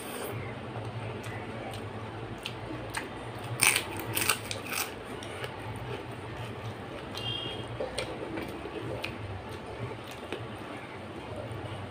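Close-up chewing and wet mouth sounds of someone eating rice and dal by hand, with a cluster of sharper, crunchy clicks about four seconds in. A steady low hum runs underneath.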